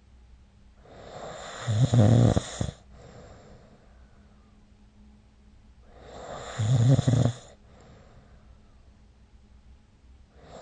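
A sleeping person snoring: two loud snores about five seconds apart, each swelling over about a second and then cutting off, with quiet breathing between.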